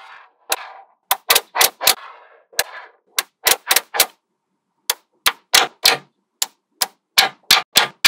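Small neodymium magnetic balls snapping together one after another in sharp, uneven clicks, about twenty of them. A soft scraping of balls sliding together runs between the clicks in the first half, and there is a short pause a little past the middle.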